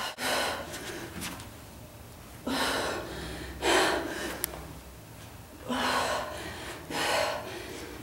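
A woman breathing hard with exertion through a set of ab crunches: five loud, sharp breaths, coming in pairs about three seconds apart.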